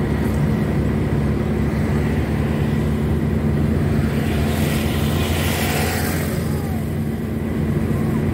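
Steady engine drone and road noise inside the cabin of a square-body VW Voyage at highway speed. A rush of hiss swells and fades about halfway through.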